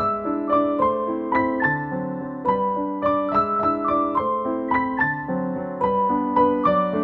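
Background music on a keyboard instrument with a piano sound: a melody of evenly spaced notes, about three a second, over held lower chords.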